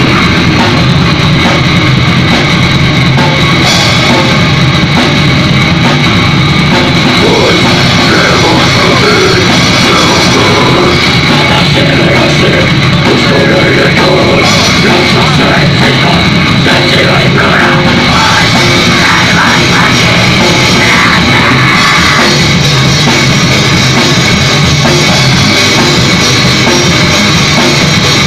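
Live heavy rock band playing loud: bass guitar and drum kit with cymbals, with no breaks in the music.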